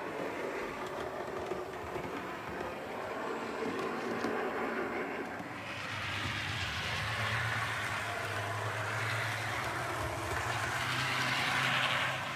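OO gauge model diesel locomotive running along the layout's track. About halfway through a steady low hum joins the running noise, which grows louder toward the end and then cuts off suddenly.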